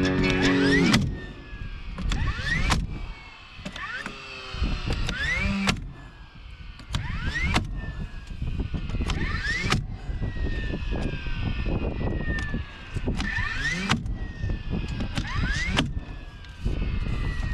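Electric motor whining up and down over and over, short rising and falling whines broken by sharp clicks, after background music stops about a second in.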